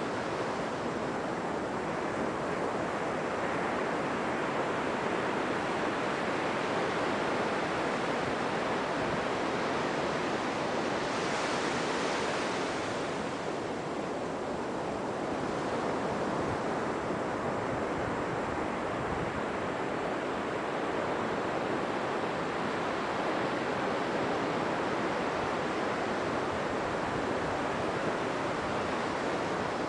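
Steady rush of ocean surf on a beach, with a brighter hiss about eleven seconds in as a wave washes up.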